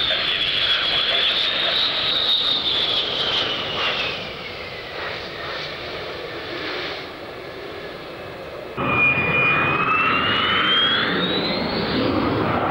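General Dynamics F-111 jet with twin TF30 turbofans: a high jet whine that falls in pitch and fades as the aircraft passes. About nine seconds in, a sudden cut brings a louder jet whine that rises steadily in pitch as an F-111 approaches to land with its gear down.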